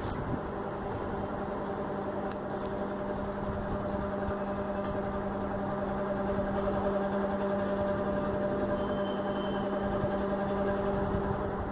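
USHA Chota Bheem fan running with a steady, pitched hum over a low whirring noise: the abnormal noise it is being complained of.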